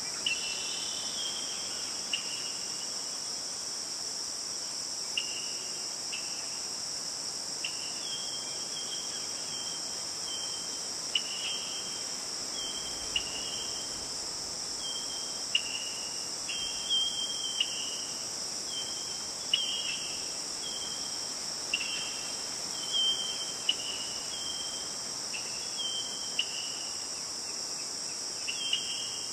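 Steady high-pitched insect chorus of crickets, with short high chirps repeating about every second, often in pairs or threes.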